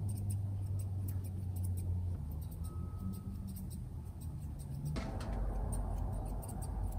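Grooming shears snipping quickly and lightly through a standard poodle puppy's leg coat, a run of faint ticks over a low hum.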